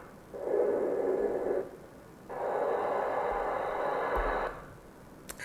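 Wind sound effect playing back: two gusts of blowing noise, each swelling up and dying away after a second or two.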